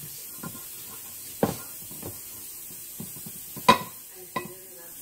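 A spatula scraping and knocking against a stainless steel stand-mixer bowl as meatloaf mixture is worked out of it: several scattered knocks, the loudest about three-quarters of the way through with a brief metallic ring.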